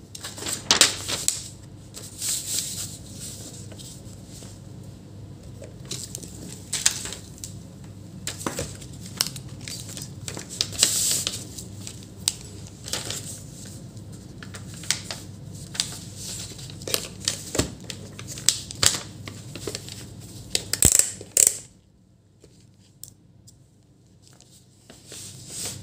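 A sheet of paper rustling and crinkling as it is laid out and handled on a work mat, in a string of short scrapes and rustles, with a few sharp taps of small parts and test leads. It goes quiet for a few seconds near the end.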